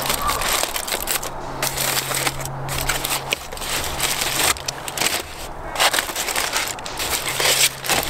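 Aluminium foil packet being unwrapped by hand, crinkling and crackling in irregular bursts with short pauses.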